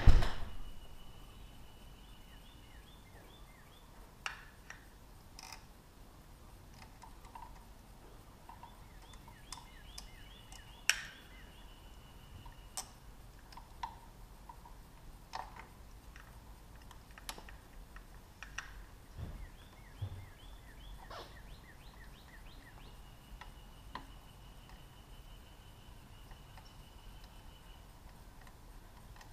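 Bird song heard three times: a quick run of notes leading into a long steady trill. Scattered clicks and taps of hand tools on the motorcycle come in between, after a sharp knock at the very start.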